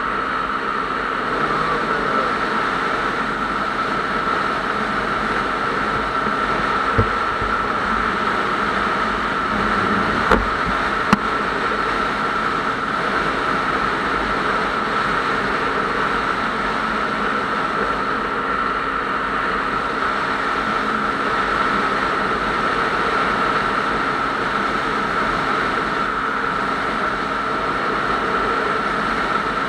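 A vehicle driving at highway speed: steady engine and road noise with a constant high-pitched whine. There are three brief knocks, a third of the way in.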